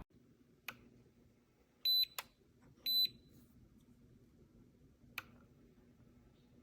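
Two short high electronic beeps from an electric gooseneck kettle's control base, about two and three seconds in, with a few light clicks before, between and after them.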